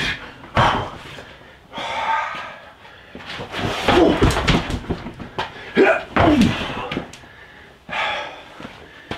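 Punches, knees and kicks landing on a freestanding rubber-torso striking dummy: a run of thuds and slaps, several strikes with gaps between. Short grunts and hard breathing from the exertion come with the blows.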